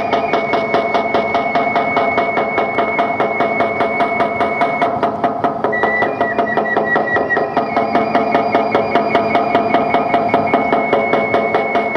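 Drum beaten in a fast, even rhythm of about four strokes a second for a dance, with a steady high tone held over it that shifts in pitch about six seconds in.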